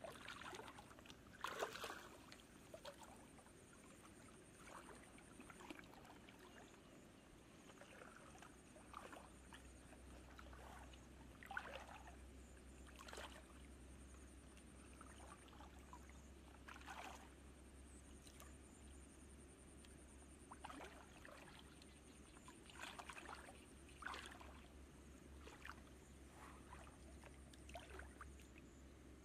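Faint, scattered splashes and sloshing of shallow water as a person wades through it and reaches in by hand.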